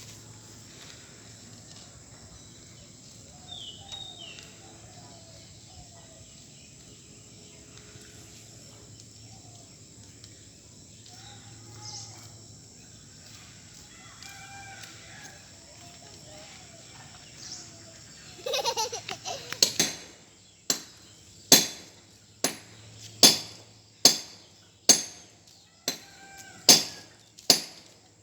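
Faint bird calls, then about two-thirds of the way in a short flurry followed by a steady run of about ten sharp knocks, a little under a second apart.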